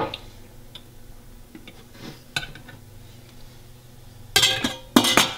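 Stainless steel lid clanking against the rim of a stainless steel cooking pot: a sharp click at the start, a few faint clicks, then two loud metallic clatters with ringing near the end.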